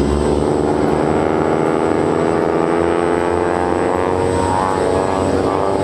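Engines of a formation of propeller-driven aerobatic airplanes droning steadily as they fly a smoke-trailing manoeuvre, their several engine tones drifting slowly in pitch.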